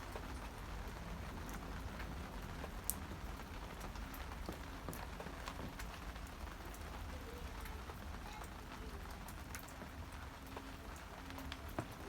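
Rain falling, a steady patter with many separate drops ticking sharply on a surface.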